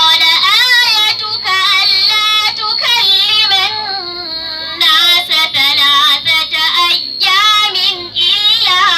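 A girl recites the Qur'an into a microphone in a melodic, chanted style. Her voice moves in long, wavering phrases broken by short pauses for breath.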